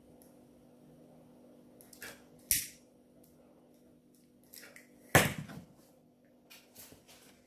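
Several sharp clicks and knocks from small objects and tools being handled on a work surface, the two loudest about two and a half and five seconds in, over a steady low hum.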